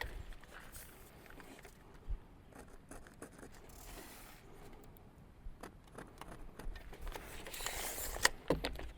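Faint knocks, clicks and scraping of wooden clapboard siding boards being handled, with a brief rustle about four seconds in and a louder scrape with a few sharp knocks near the end.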